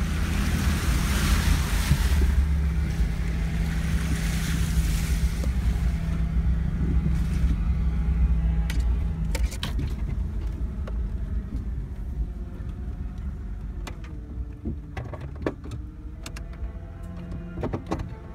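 A vehicle's engine and drivetrain rumbling in the cab while it drives through a muddy puddle, with water splashing and rushing under the body twice in the first few seconds. Later, on a rough dirt track, the rumble eases and the body gives a series of knocks and rattles over the bumps.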